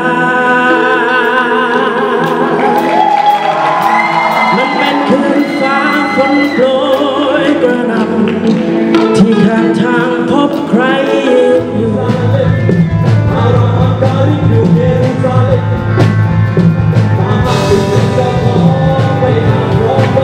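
A band playing with a singer. About halfway through, bass and drums come in and the music turns heavier.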